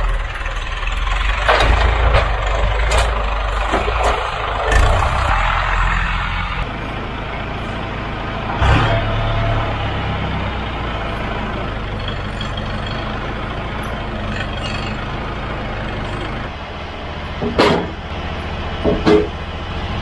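Tractor engine with front-end loader running steadily while handling a log, louder and noisier for the first few seconds. Sharp knocks and clunks come at intervals, the loudest two close together near the end.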